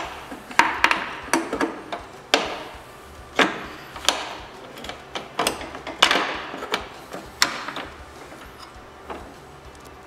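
Irregular metal knocks and clanks, about fifteen sharp hits with short ringing tails, as a snowmobile belt-drive tensioner is worked into place against the chaincase, with a pry bar levering the running board down.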